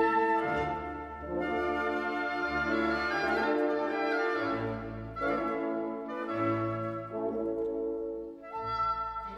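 Orchestral background music with brass instruments carrying sustained chords over low bass notes.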